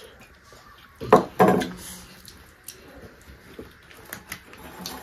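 Eating noises at a shared banana-leaf meal: scattered small clicks and smacks of chewing and of hands picking at the food, with two loud short sounds close together about a second in.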